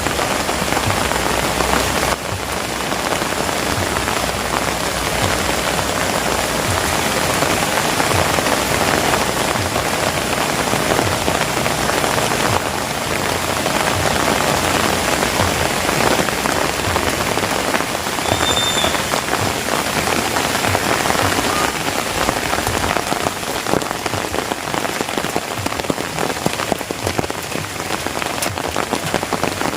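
Heavy rain falling steadily: a dense, even hiss peppered with countless individual drop impacts.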